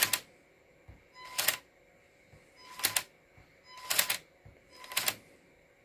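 Lego Technic four-speed gearbox being shifted by a Powered Up L motor: five sharp plastic clicks about a second apart as a small detent mechanism snaps each gear into place, each click preceded by a brief motor whine.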